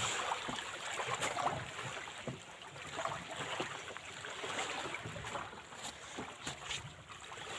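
Seaside water sounds, waves lapping, with wind on the microphone and a few small clicks.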